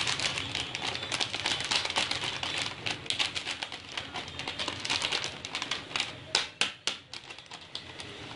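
Plastic toner refill pouch crinkling as it is handled, a fast run of crackles with a few louder snaps about two-thirds of the way in.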